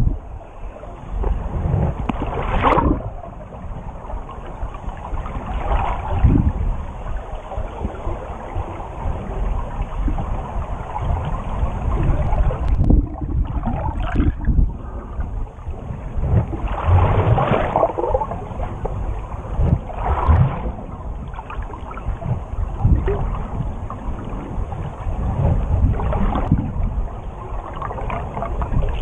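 Muffled rushing and sloshing of water heard from a camera held underwater, swelling louder every few seconds.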